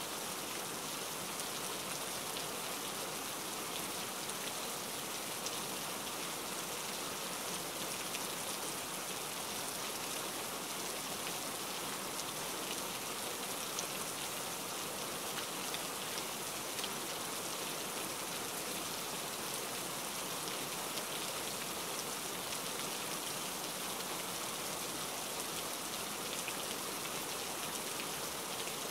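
Steady rain: an even hiss with many small drops ticking through it.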